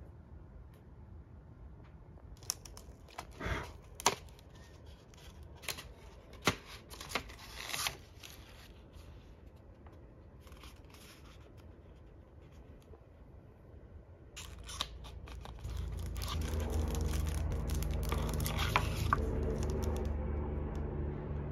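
Paper and plastic packaging of a folding fan being handled and opened: scattered sharp crackles and tearing in the first part, then denser crinkling over a steady low hum that comes in about two thirds of the way through.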